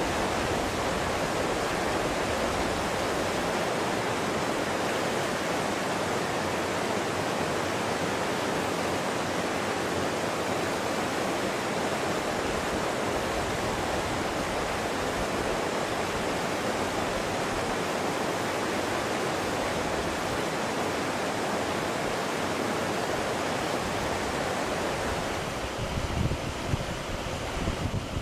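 Mountain stream rushing in a steady, even roar as it pours over smooth granite slabs, heard close to the water. Near the end the rush eases a little and wind buffets the microphone in low, uneven thumps.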